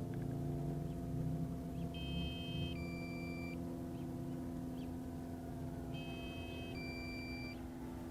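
Drone remote controller's low-battery warning: a two-part electronic beep, a short chord of tones followed by a single tone, that repeats about every four seconds over a steady low hum.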